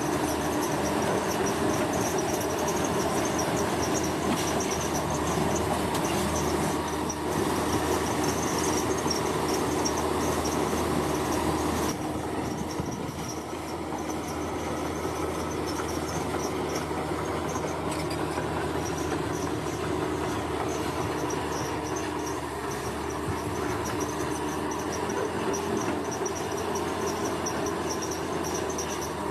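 Heavy diesel construction machinery running steadily, with a high whine over the engine; the sound drops a little about twelve seconds in.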